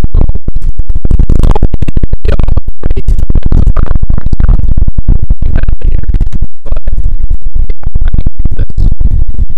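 Crumpled aluminium foil crinkling and crackling loudly as it is handled around a smoked pork butt being pulled apart by hand, a dense run of irregular crackles.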